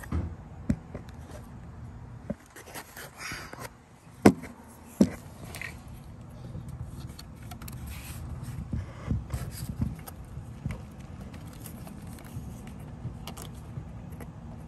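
Hands working the plastic electrical connectors on the rear ignition coils in a tight engine bay: scattered plastic clicks, scrapes and rustling. A sharp click comes about four seconds in and another a second later.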